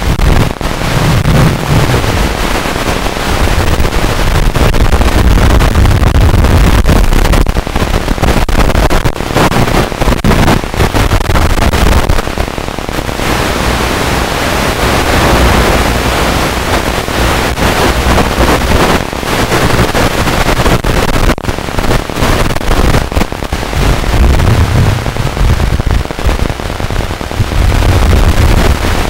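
Loud crackling static hiss, the audio of an analog FPV video receiver with no real sound on its channel, as recorded with the quadcopter's video feed.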